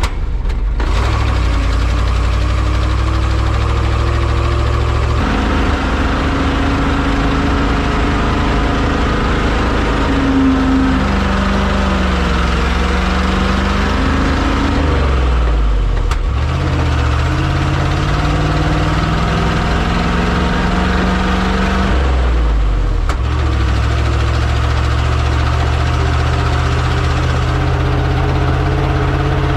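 Loaded grain truck's engine running steadily under way, its pitch dipping and climbing back up a few times, most clearly about halfway through and again later on.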